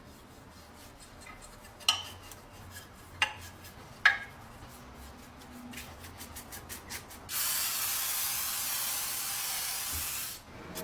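Sharp clicks and light metallic ticks from small parts being handled, then a steady spray hiss for about three seconds that cuts off abruptly.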